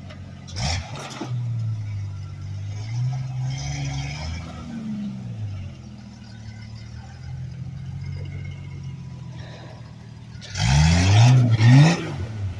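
Off-road vehicle's engine revving up and down as it works up a rock climb, with two hard, louder revs near the end.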